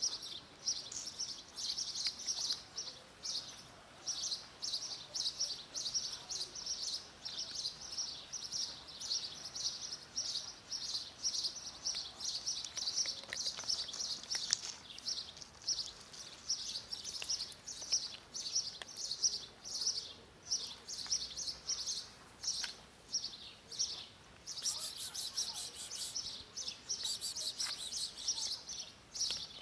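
Small birds chirping steadily, several short high chirps a second. A second, higher-pitched chirping joins in near the end.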